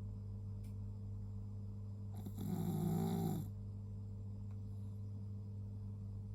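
Snoring: one loud, rasping snore lasting a little over a second, near the middle, over a steady low hum.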